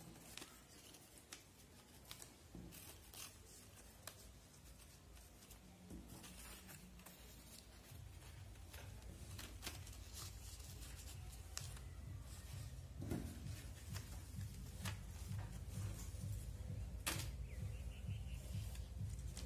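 Ruled notebook paper rustling and crinkling as it is folded and handled into a paper airplane, with scattered faint crackles. A low rumble comes in about eight seconds in and grows louder.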